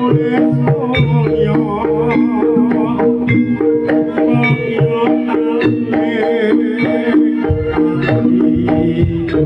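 Javanese jaranan campursari ensemble playing: kendang hand drums beating quick strokes under steady held metallophone and gong tones and a wavering high melody line. Deeper low notes join about three quarters of the way through.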